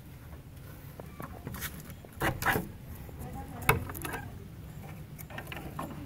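Wooden chicken-coop door and its metal latch being handled: a short cluster of clatters about two seconds in, then one sharp knock, the loudest, a little over a second later.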